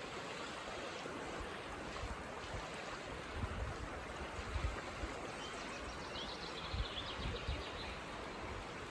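A rainforest stream flowing steadily, with a bird chirping in short high notes for a second or so about six seconds in. Brief low rumbles of wind on the microphone come and go.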